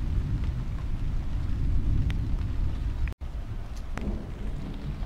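Thunder rumbling, deep and loud, cut off suddenly about three seconds in, then a quieter rumble with a few raindrop ticks.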